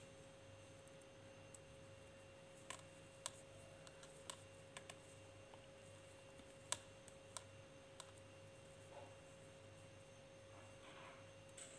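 Faint, scattered clicks of metal knitting needles tapping together as stitches are worked, about nine in all, over a steady faint hum.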